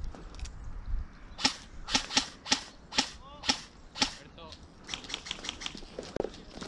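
Airsoft guns firing a quick string of about seven sharp single shots, starting about a second and a half in and stopping about four seconds in.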